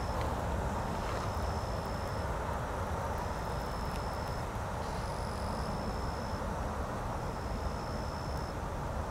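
Steady low outdoor rumble with no single source standing out. A thin high tone, each about a second long, repeats about every two seconds over it.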